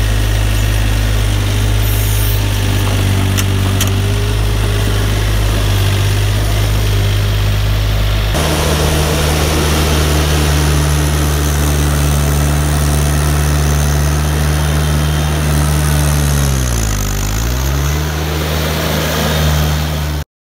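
MultiOne 8 Series mini loader's engine running steadily as the tracked loader drives. About eight seconds in the engine note shifts abruptly to a different pitch. Near the end the revs drop briefly and pick back up, then the sound cuts off suddenly.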